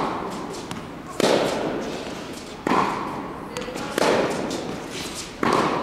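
Tennis ball struck hard by rackets in a rally, four sharp hits about a second and a half apart, each trailing a long echo in the indoor tennis hall.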